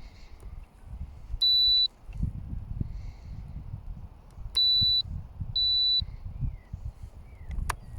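Three steady high-pitched electronic beeps, one long and two shorter, from the radio gear of an OMP M1 micro RC helicopter. Wind rumbles on the microphone underneath, and there is a sharp click near the end.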